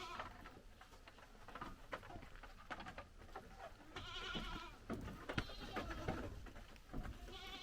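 Goat bleating twice, a wavering call about four seconds in and another near the end, with scattered short knocks and clicks between.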